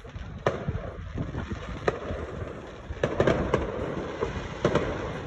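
Aerial fireworks going off: about half a dozen sharp bangs from bursting shells, irregularly spaced, with a quick cluster about three seconds in and a pair near the end.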